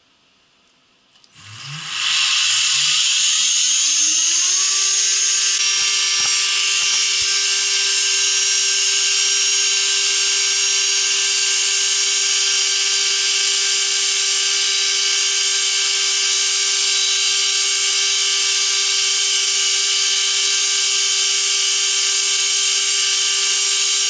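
Aluminum-frame 2x72 belt sander, driven by a 3 HP three-phase motor on a VFD, starting up. About a second in a loud belt hiss comes on suddenly, and the motor whine rises in pitch for about three seconds. It then runs steadily at its top belt speed of over 7,000 surface feet per minute.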